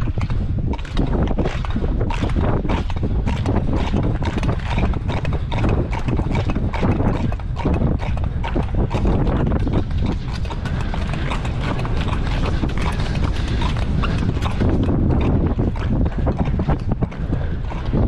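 Long-track speed skates at full sprint on the ice: rhythmic clacks of the clap-skate hinges and scraping blade strokes, several a second, over a steady rush of wind on the microphone.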